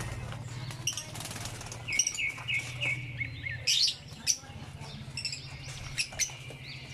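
African lovebirds chirping, with a quick run of short repeated notes about two seconds in and a few sharp, loud calls around four seconds in, over a steady low hum.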